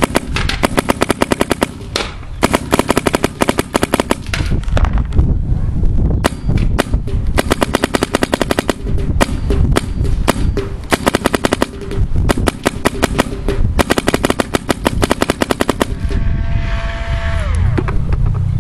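Bob Long electronic paintball marker fired rapidly on semi-automatic: long strings of sharp shots at about ten to twelve a second, broken by short pauses. Near the end the shooting stops and a tone slides down in pitch.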